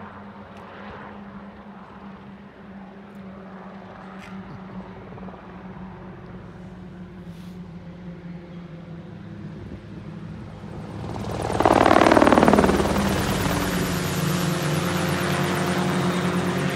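CH-7 Charlie ultralight helicopter flying, its engine and rotor a steady drone that slowly grows louder. About twelve seconds in it peaks sharply as it passes close, its pitch dropping, then stays loud as it flies on.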